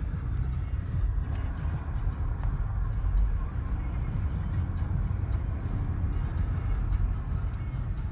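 Wind buffeting the microphone in a snowstorm: a steady low rumble that rises and falls from moment to moment.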